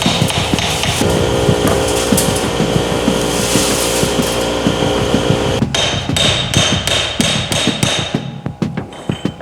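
Rapid, repeated hammer blows on wood, from knocking apart a century-old wooden danjiri festival cart. A steady hum underneath stops about six seconds in, leaving sharper, more separate knocks.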